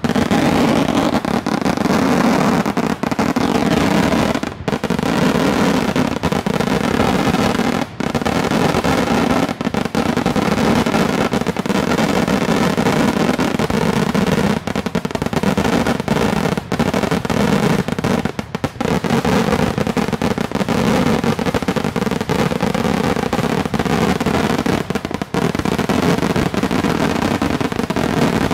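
Daytime fireworks barrage: shells bursting in very quick succession, the bangs running together into a continuous din, broken only by a few split-second pauses.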